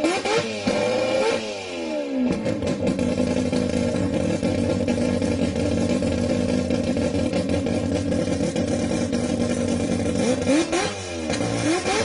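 Mazda 26B four-rotor rotary engine in an RX2, blipped up and down a few times, then settling into a steady idle, and blipped again near the end.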